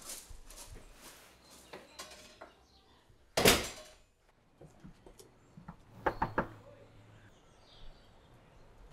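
A front door shutting with a single loud thud about three and a half seconds in, after a few faint clicks and rustles. A quick cluster of light knocks or rustles follows about two and a half seconds later.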